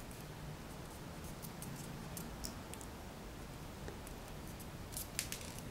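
Faint rustling and light ticks of a paper tube being rolled and pressed between fingers around a thin bamboo stick, with a few sharper crinkles near the end.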